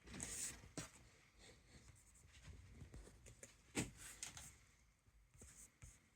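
Faint handling noises: a brief rub or swish at the start, then scattered light clicks and taps, the sharpest about four seconds in.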